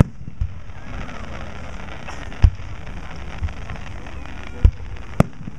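Aerial fireworks shells bursting: about six sharp booms at uneven spacing, the loudest about two and a half seconds in, over a steady background hiss.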